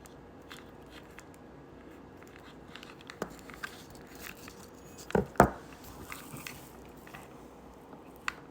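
Scattered small clicks, crinkles and crunches of hands and tools working on wires and a heat-shrink butt connector, with a couple of louder knocks about five seconds in.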